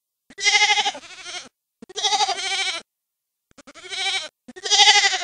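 Goats bleating: four separate bleats about a second apart, each with a wavering, quavering pitch.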